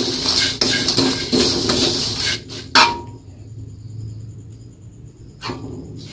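Wooden spatula stirring and scraping dry, crisp-fried instant noodles around a stainless steel wok: a dense rattling scrape for the first three seconds ending in one sharp stroke, then quieter, with two single strokes near the end.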